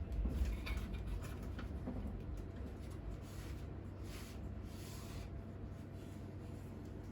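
Light handling noise from working inside a computer case: a few small clicks and a soft rustle or rub of cables and parts, over a steady low hum.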